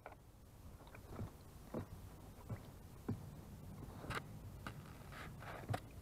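Wood pigeon bathing in a shallow bird bath: short, scattered splashes and water flicks as it dips and shakes its wet feathers.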